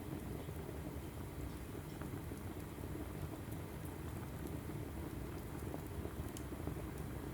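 Log fire burning in a fireplace: a steady low rush of flames with scattered sharp crackles.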